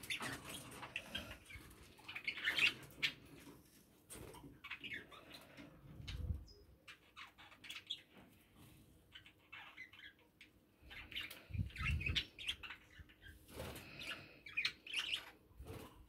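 Budgerigars chattering in short, scattered chirps and clicks, with two low bumps about six and twelve seconds in.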